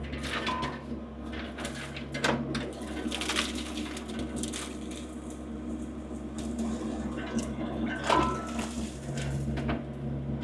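Small diesel engine of a compact work machine running steadily, with scattered clanks, knocks and short squeaks from the machine as it works back and forth in mud and slush.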